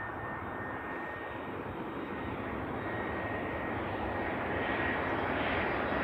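Airbus A320 jet airliner on landing approach: engine noise rising gradually as it comes nearer, with a thin steady whine over the rumble.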